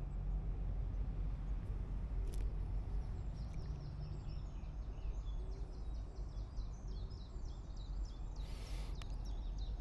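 Outdoor pond-side ambience: a steady low rumble under a small songbird singing a quick series of high, repeated chirping notes through the middle, then a brief rustle near the end.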